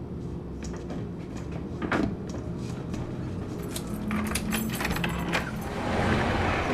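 Keys jangling and a lock clicking as a shop's glass door is unlocked, after a few scattered knocks and clicks. Near the end the door opens and the noise of street traffic swells in.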